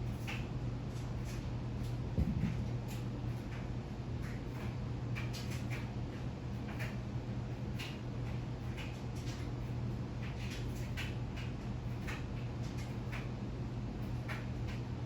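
52-inch GE ceiling fan running, its motor giving a steady low hum, with irregular light clicks over it.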